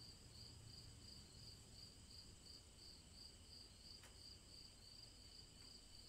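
Crickets chirping faintly, a steady high trill pulsing about three times a second.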